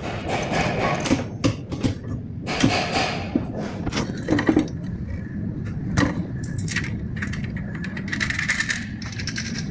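Irregular clicks and knocks of metal tools and parts being handled while an e-bike hub motor is taken apart and reassembled.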